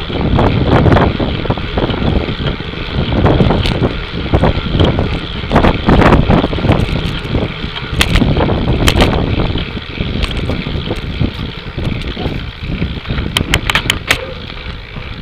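Wind rushing and buffeting over the microphone of an action camera on a racing cyclist riding in the pack, rising and falling in gusts. Scattered sharp clicks and knocks come through it, several close together near the end.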